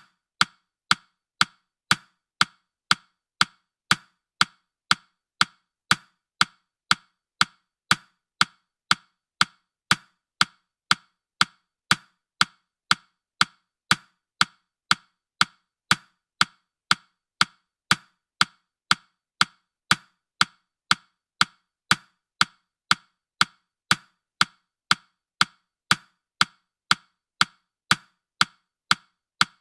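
Countdown timer's ticking: short, sharp, evenly spaced clicks, about two a second, with no change in pace.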